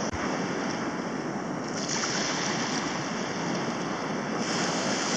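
Sea surf washing up a flat sandy beach: a steady rushing hiss of breaking and spreading waves, swelling a couple of times and growing louder near the end.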